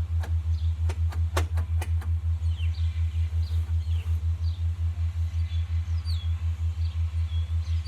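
A loud low hum pulsing evenly about six times a second runs throughout. A few sharp clicks from working on the snowblower's housing come in the first two seconds, and birds chirp from about two and a half seconds on.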